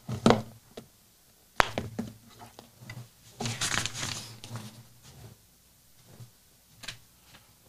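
Handling noise at a lectern picked up by its microphone: a sharp knock about a second and a half in, a brief rustle around three and a half seconds, then a few faint taps.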